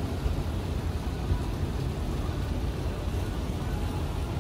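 Wind buffeting the microphone on an open upper deck: an uneven low rumble with a faint hiss above it.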